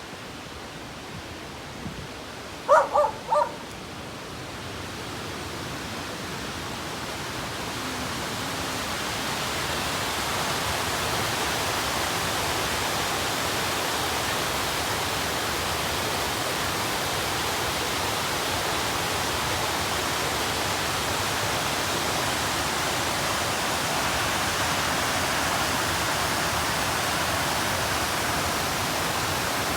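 Rushing water from a waterfall or stream, a steady noise that swells over the first ten seconds or so and then holds level. About three seconds in, an animal gives three short calls.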